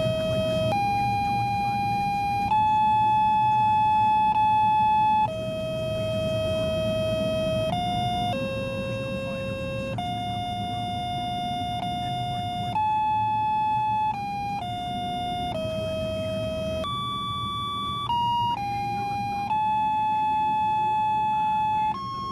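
Glitchy electronic monophonic music box playing a slow melody. It is a single electronic tone stepping from note to note, each note held one to three seconds, over a low steady rumble.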